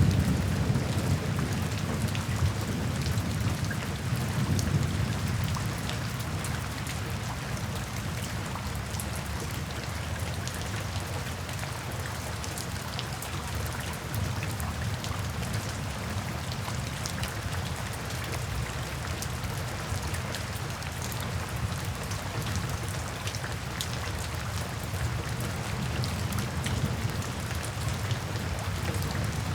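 Steady heavy rain falling, with scattered drops ticking, over a low rumble of thunder that is strongest in the first few seconds and then dies down to a faint roll.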